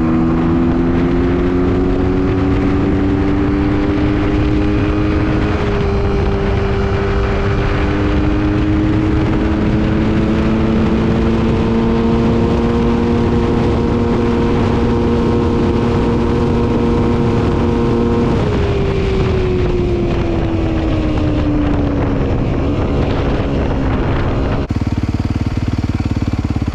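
Honda CRF250R's 250 cc single-cylinder four-stroke engine running at full throttle toward its 77 mph top speed. The pitch climbs with a brief dip about five and a half seconds in, holds high for about ten seconds, then falls away as the throttle is closed.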